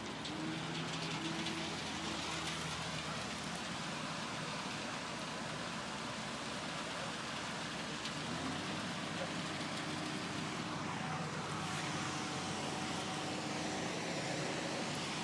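Steady road traffic and vehicle engine noise, an even rush with a faint engine hum underneath.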